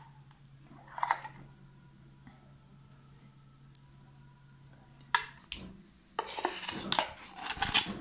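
Metal clinking and scraping on an open tin can as thick boiled condensed milk is emptied from it into a mixing bowl. A few sharp clinks come about five seconds in, followed by a couple of seconds of busy clattering and scraping.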